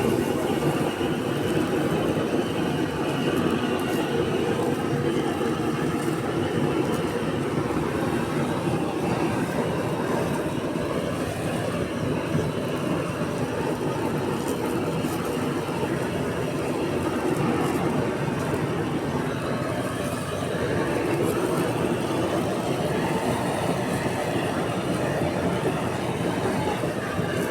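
Steady rushing noise of a gas blowtorch flame, used to singe the hair off a slaughtered sacrificial animal.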